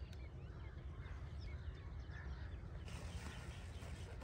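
Small birds chirping faintly and repeatedly over a steady low rumble.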